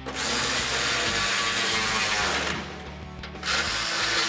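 Power tool spinning a 10 mm socket to run down and tighten an exhaust hanger bolt. It runs in two bursts, the first about two and a half seconds long, then a brief pause, then another burst near the end.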